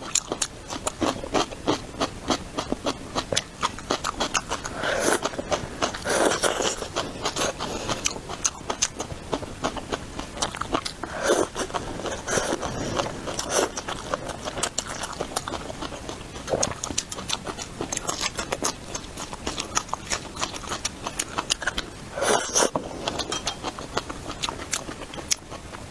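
Close-miked eating: a dense run of rapid mouth and teeth clicks and smacks from chewing food, with a louder bite now and then.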